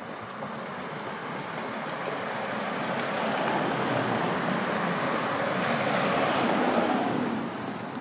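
A vehicle passing close by: a rushing noise that builds to a peak near the end and then fades.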